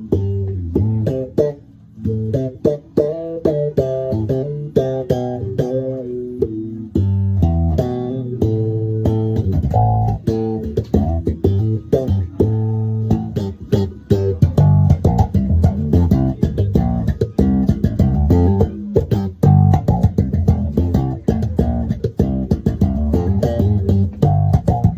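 Fender Jazz Bass played slap-style through an Electro-Harmonix Nano Q-Tron envelope filter: a fast run of slapped and popped notes with sharp percussive attacks. The playing gets busier and louder about halfway through.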